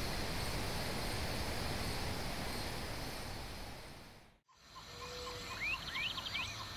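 Steady natural ambience with faint insect chirping, which fades out about four seconds in. Forest ambience with bird calls takes over: a regular pipping about four times a second, a few quick rising whistles and high trills.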